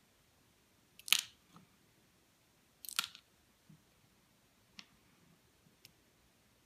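A few small clicks and scrapes from handling the small metal parts of a disassembled padlock. The two clearest come about one and three seconds in, each a short click with a brief scraping tail, followed by fainter ticks.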